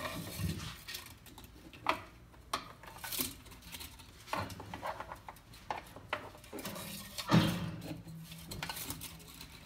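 Light metallic clicks and clinks of a key chain being handled as a small accessory is put onto it, with a louder knock about seven seconds in.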